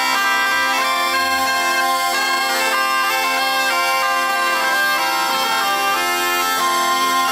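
Zampogna, the southern Italian bagpipe, playing a folk tune over its steady drone, together with a ciaramella (shawm) carrying the melody.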